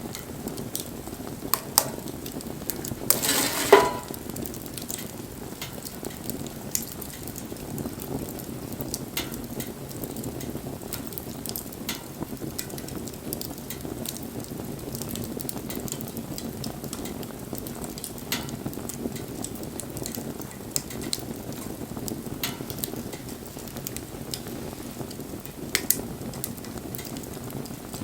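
Wood fire burning, with a steady low rush and frequent sharp crackles and pops; a louder burst lasting about a second comes a little after three seconds in.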